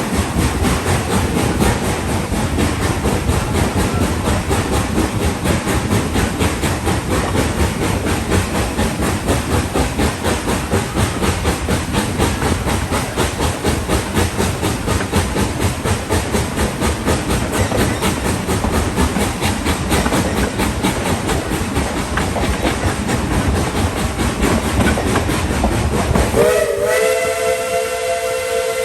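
Steam train running with a steady rushing clatter and quick rhythmic pulses, heard from a passenger coach behind steam locomotive No. 12. About 26 seconds in, the locomotive's steam whistle starts, rises slightly, then holds on a steady tone.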